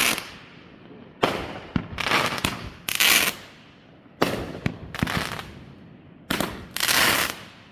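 Fireworks going off in quick succession: sharp bangs about every second, some in close pairs, each followed by a crackling burst that fades over about a second.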